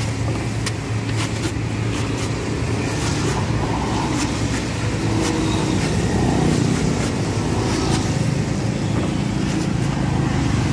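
A heavy cleaver chopping and shaving the husk off a young green coconut on a wooden block: a string of short, sharp strikes at an uneven pace. Steady road traffic runs underneath.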